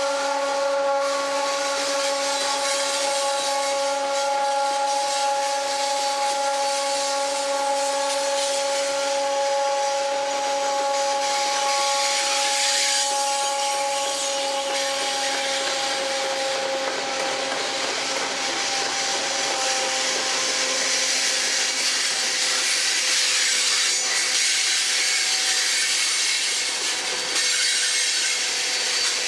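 Loaded coal train rolling past: steel wheels on the rails making a steady grinding rush, with a steady whine that slowly fades out about two-thirds of the way through.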